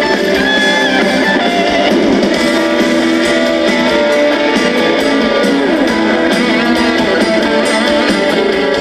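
Band music with a prominent electric guitar playing, steady and unbroken, with sliding notes.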